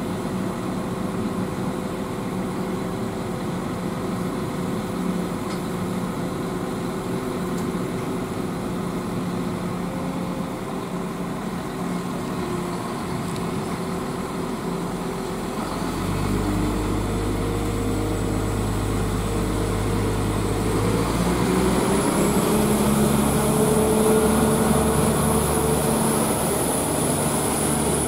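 NIR Class 4000 diesel multiple unit standing at the platform with its diesel engines idling steadily. About halfway through the engines open up with a deeper drone, and then the engine note climbs and a high whine joins in as the train pulls away.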